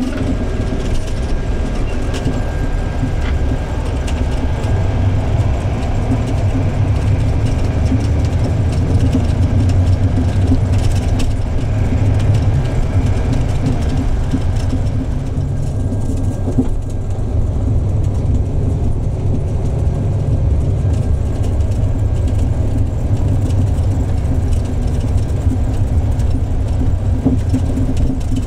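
Bus diesel engine running through a modified exhaust, a loud, steady low rumble.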